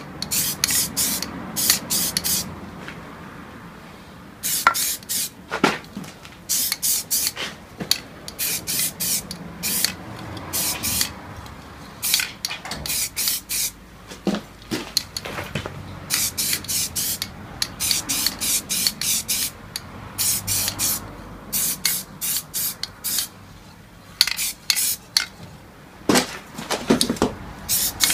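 Aerosol spray-paint can hissing in many short bursts of under a second each, in quick groups with brief gaps, as a coat is laid on an alloy wheel. A few sharp clicks stand out between the bursts.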